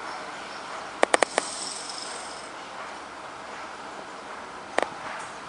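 Outdoor construction-site ambience: a steady hiss of background noise with a quick run of four sharp knocks about a second in and two more near the end.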